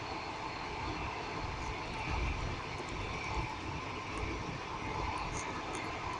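Passenger train running on the rails, heard from inside the carriage: a steady rumble of wheels and running gear, with a few heavier low thumps from the wheels.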